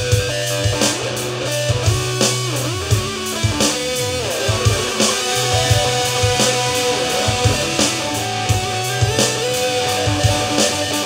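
Electric guitar jam: lead notes bending up and down over a bass line and a steady drum beat.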